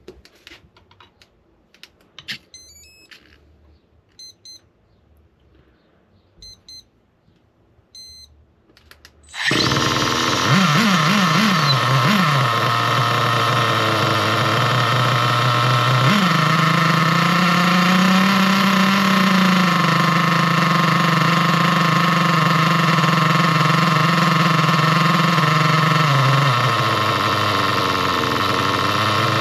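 Faint clicks and a few short electronic beeps, then a nitro RC car's glow engine catches suddenly about a third of the way in and runs steadily at idle. About halfway the idle speed steps up to a higher pitch as the low-speed needle is turned clockwise to lean the mixture, enough to make the wheels spin, then the revs dip near the end.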